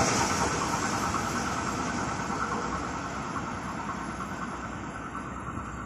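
Freight train of covered steel-coil wagons rumbling away into the distance, its wheel-on-rail noise fading steadily.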